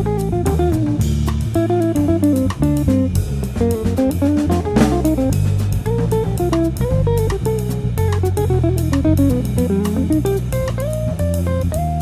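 Background instrumental music: a guitar melody over bass and a drum kit with a steady beat.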